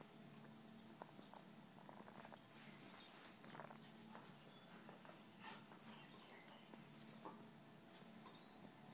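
Two dogs playing: faint dog whimpers among scattered light, high-pitched clicks and jingles from their movement.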